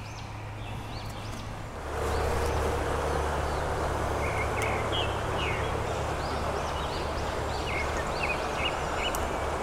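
Steady rushing noise of a flowing trout stream, stepping up in level about two seconds in, with small birds singing short, repeated chirping phrases over it.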